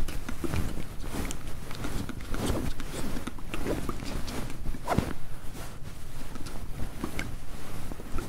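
Close-up inaudible whispering, broken up by irregular mouth clicks and scratchy, crackly noises.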